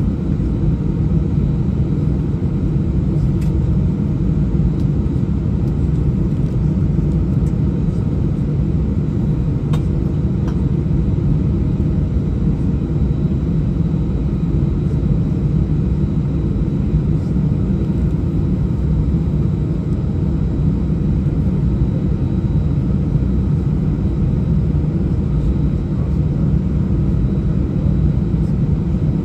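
Steady low rumble of an Airbus A319 taxiing on the ground with its jet engines at idle, heard from inside the passenger cabin. A few faint clicks come through about three and ten seconds in.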